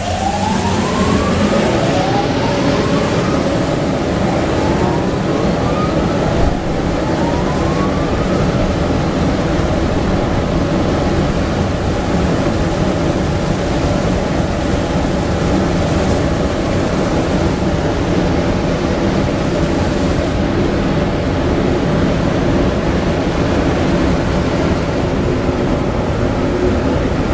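Automatic train wash plant running: water jets spraying and the wash machinery turning make a loud, steady rush. A few rising whines sound through it in the first several seconds.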